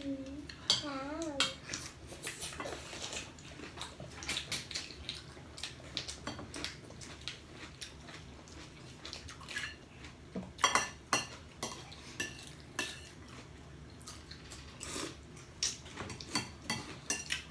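Cutlery clinking and scraping against plates and dishes during a meal, with irregular sharp clicks throughout.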